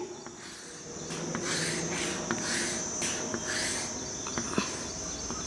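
Handwriting: a run of short scratchy pen strokes as a word is written out between ruled lines, over a steady high-pitched hum.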